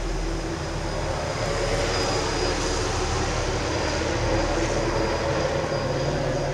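Police helicopter flying overhead, a steady engine and rotor drone that grows louder over the first couple of seconds and then holds steady.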